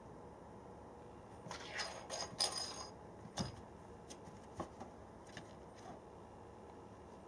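A cat batting a domino piece across a wooden floor under a door: bursts of scraping and light clicking, a dull knock about three and a half seconds in, then a few faint taps.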